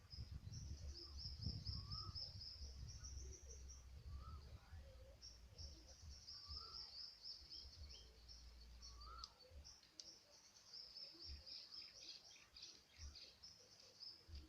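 Faint outdoor ambience of insects chirring in long, high pulsing stretches, with short rising bird chirps every couple of seconds. A low rumble underneath stops about nine seconds in.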